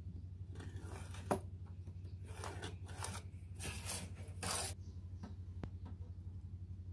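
A plastic ruler set down on a sheet with a sharp click, then a pencil scratching in short strokes along the ruler as a straight line is drawn, over a steady low hum.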